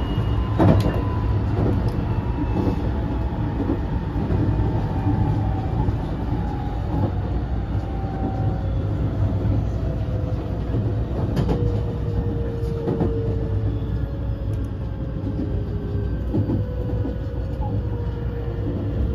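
Interior running noise of a JR 223 series 2000 motor car with a Toshiba IGBT inverter: a steady low rumble under a whine from the traction motors and inverter that falls slowly in pitch as the train slows for its next stop. A few sharp clicks stand out over it.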